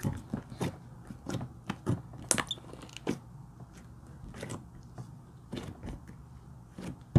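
Thick slime being squished, folded and pressed flat by hand, giving irregular wet, sticky clicks and pops. The pops are closely spaced over the first few seconds, thin out later, and end with one sharp, loud pop.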